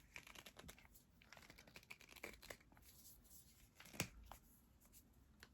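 Faint crinkling and scratching of a product's packaging being worked at by hand as it resists opening, with scattered small clicks and one sharper click about four seconds in.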